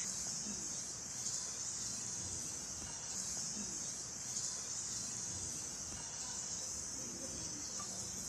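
Quiet background ambience: a steady high-pitched hiss over a faint low murmur, with no distinct event.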